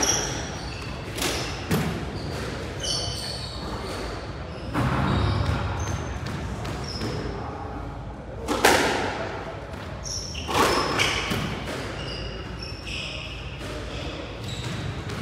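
Squash rally: the rubber ball struck by rackets and smacking off the court walls in sharp knocks every second or so, with short high squeaks of court shoes on the wooden floor between hits.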